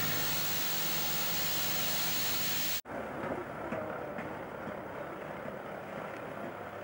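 Diesel engine of a RENFE series 301 shunting tractor running steadily with a strong hiss. About three seconds in, an abrupt cut to a quieter, duller engine sound as another tractor of the class moves along the track.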